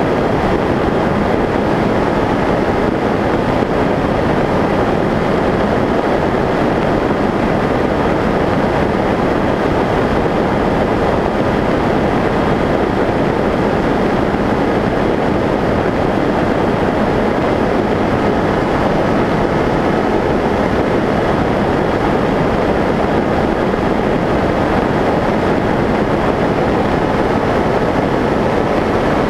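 Skyshadow S800 flying wing in cruise, heard from its onboard camera: steady rushing airflow over the microphone with the faint whine of the electric motor and propeller running at a constant throttle, the whine edging up slightly near the end.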